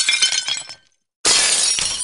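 Glass-shattering sound effects: one crash dying away within the first second, then silence, then another sudden crash about a second and a quarter in.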